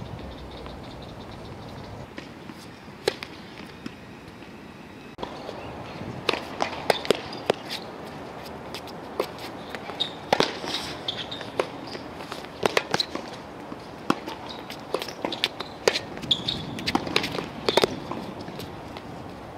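Tennis play on a hard court: sharp knocks of a tennis ball being struck by rackets and bouncing on the court, mixed with players' footsteps. The knocks are sparse for the first few seconds, then come thick and irregular from about six seconds in.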